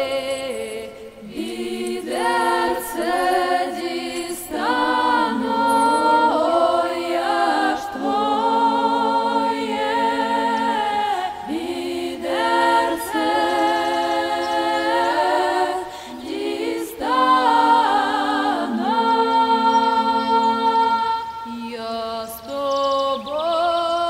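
Unaccompanied choir singing slow, held notes in harmony, the voices wavering with vibrato, in phrases a few seconds long.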